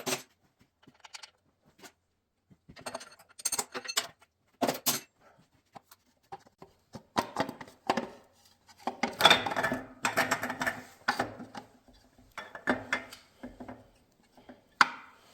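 Metal engine parts and tools clinking and clattering as they are handled and set down, in irregular bursts with gaps between, the busiest stretch a little past the middle.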